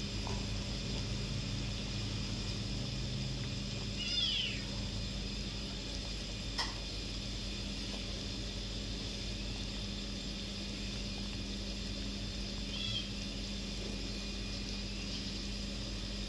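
A pot of broth at a rolling boil, bubbling steadily under a low hum. About four seconds in, a short animal call falls in pitch, and a single sharp click and a brief high call follow later.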